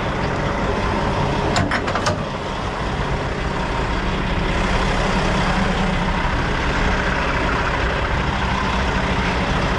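Semi truck's diesel engine idling steadily, with a few sharp clicks about a second and a half in.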